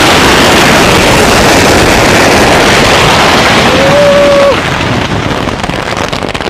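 Thousands of firecracker strings taped over a car going off together in a dense, continuous crackling blast. About four and a half seconds in it eases off into more separate bangs.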